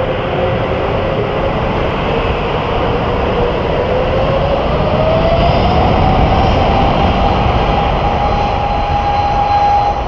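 Airbus A330neo's Rolls-Royce Trent 7000 jet engines running over a steady rumble, their whine rising in pitch about four seconds in and then holding at the higher note: the engines spooling up for takeoff.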